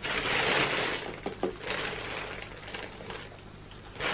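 Clear plastic packaging rustling and crinkling as a new quad roller skate is handled, with two light clicks about a second and a half in.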